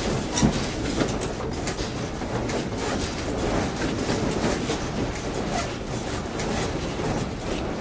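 Fusuma sliding doors and the wooden house around them rattling in their frames under strong earthquake shaking: a steady rumble full of rapid, irregular clatter, with a louder knock about half a second in.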